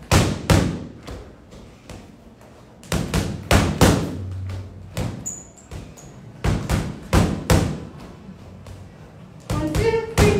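Gloved punches thudding into a free-standing heavy bag, thrown in quick combinations of three or four strikes, a fresh combination about every three seconds.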